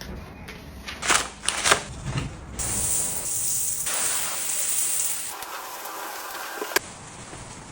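A few sharp clicks, then a steady spraying hiss for about three seconds. A lower rushing sound follows and cuts off suddenly with a click near the end.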